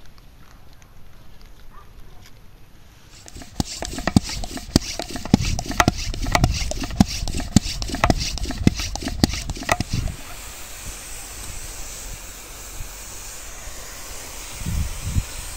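Hand pump of a garden pressure sprayer being worked in quick strokes, a knock about twice a second, building pressure in the tank. About ten seconds in the pumping stops and a steady hiss of spray from the sprayer's wand takes over.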